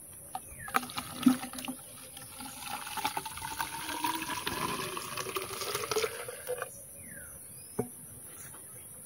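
Fresh coconut toddy (palm sap) poured from a bamboo collecting cup into a bamboo tube for about six seconds, with a rising tone. A few sharp knocks of bamboo come near the start.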